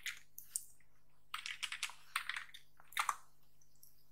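Typing on a computer keyboard: scattered keystrokes in short clusters with brief pauses between them.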